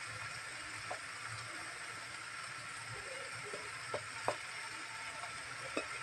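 Banana flower poriyal sizzling faintly and steadily in a non-stick kadai on a low flame, with a few light knocks as grated coconut is tipped in, two close together about four seconds in.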